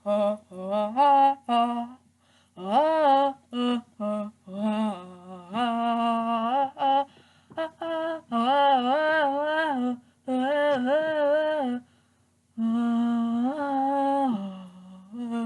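A person humming a tune in short phrases, with held notes that slide up and down and brief pauses between phrases.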